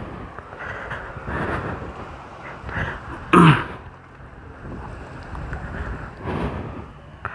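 Wind buffeting the microphone of a moving motorcycle, rising and falling in gusts. A brief loud sound cuts in about three and a half seconds in.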